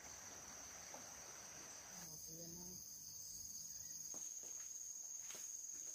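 Insects singing in one steady, high-pitched drone, with a brief low voice-like sound about two seconds in and a few faint clicks in the second half.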